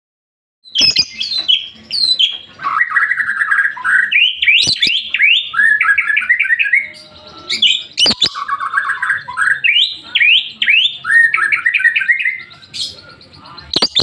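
Fischer's lovebird singing in the fast 'ngetik' (typing) style: long runs of rapid, clipped chirps mixed with short falling squeaky notes, in two bouts with a brief pause about seven seconds in. A few sharp clicks stand out within the song.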